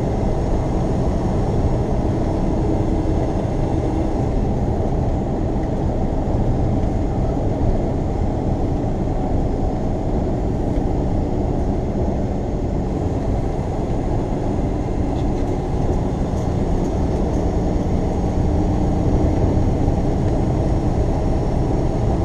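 Semi truck cruising at highway speed, heard from inside the cab: a steady drone of diesel engine and tyre noise with no clear change.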